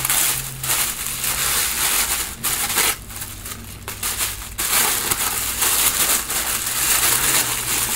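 Packaging being unwrapped by hand: continuous crinkling and crumpling of wrapping, with a short lull about three seconds in.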